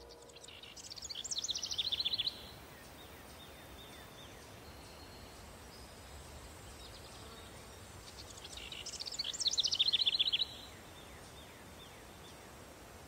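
A songbird singing twice, each song a rapid run of high notes about two seconds long that falls in pitch, grows louder and stops abruptly, over faint outdoor background noise.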